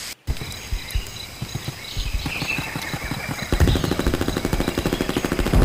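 Machine-gun fire: scattered knocks at first, then a rapid, even stream of shots starting about three and a half seconds in and growing louder.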